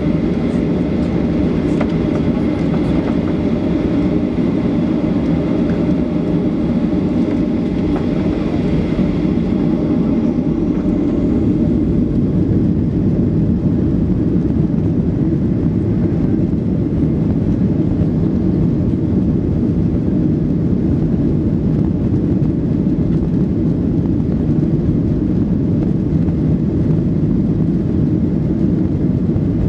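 Cabin noise of a Boeing 737-800 on the runway: the steady low rumble of its CFM56 jet engines, with the aircraft gathering speed for takeoff near the end.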